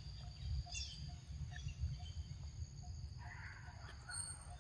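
Outdoor natural ambience: a steady high insect drone with faint, regularly repeating pips and a few short bird chirps, over a low rumble.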